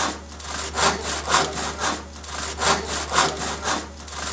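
Hand saw cutting through wood, going back and forth in even strokes about two a second, with a steady low hum underneath.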